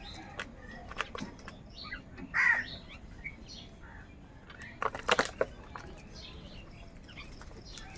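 House crows feeding at a plastic tub: scattered sharp pecking taps and wing flaps, loudest in a cluster about five seconds in, with one short caw about two and a half seconds in. Faint chirps of small birds underneath.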